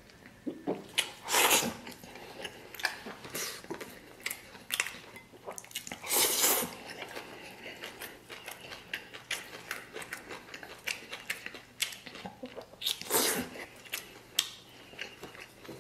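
Close-miked eating: noodles slurped in three loud noisy bursts, with chewing and many small wet mouth clicks in between.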